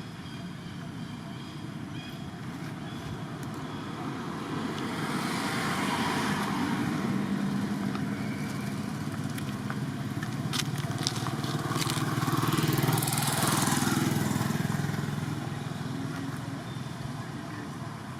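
A motor engine passing by, growing louder and fading away twice, with a few sharp clicks in the middle.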